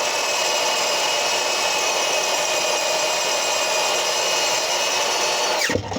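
Power drill running steadily at full speed, boring into a hardened steel bolt, with a steady whine. Near the end it is released and winds down.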